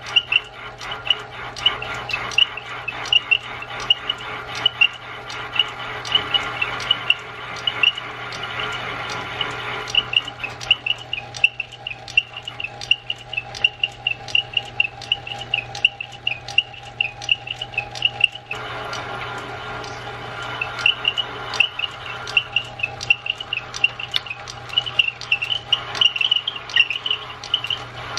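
Small metal lathe running, its tool bit cutting the hardened Morse taper shank of a drill, with rapid repeated high squeaks and sharp clicks several times a second over a steady motor hum. The squeaking and cutting noise drop away for several seconds in the middle, then start again.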